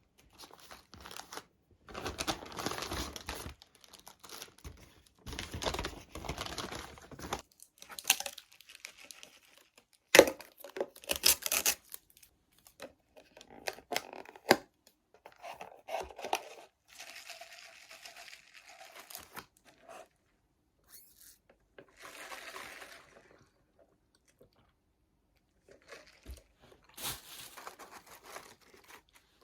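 Handling noises: packaging torn and crinkled in two rustling spells, then scattered clicks and knocks.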